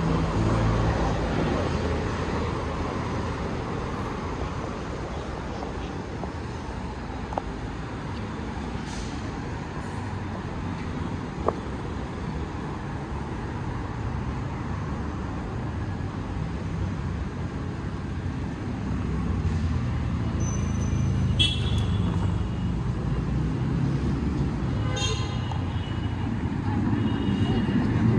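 City street ambience: steady traffic noise from a nearby avenue, with faint voices of passers-by. A few short high squeaks come near the end.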